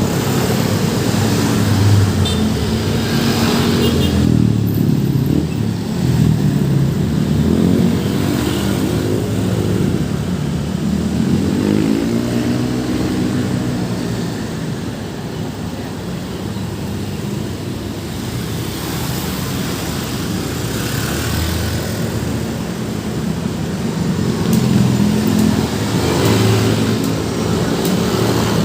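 Busy road traffic: cars, motorcycles and heavier vehicles passing, their engines rising and falling in pitch as they go by.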